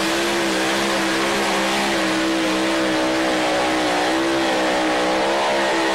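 Supercharged engine of a two-wheel-drive pulling truck held at full throttle while dragging a weight-transfer sled, a loud steady high-pitched drone whose pitch wavers slightly about four seconds in.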